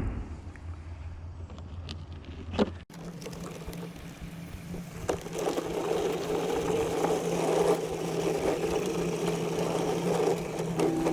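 A low hum that cuts off about three seconds in, then a steady motor running with an even drone and a low steady tone.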